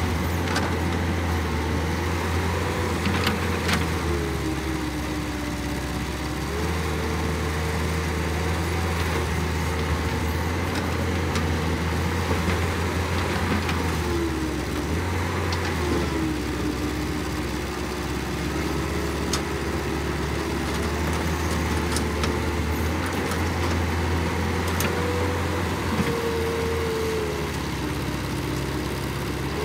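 Caterpillar hydraulic excavator's diesel engine running under working load while digging and loading, its note gliding up and down in pitch as the hydraulics take and release load, with a few light knocks.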